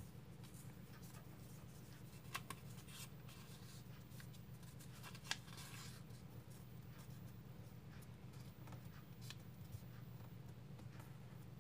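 Origami paper being folded and creased by hand: faint rustling and sliding of the sheet, with a few sharp crease clicks, the sharpest about five seconds in.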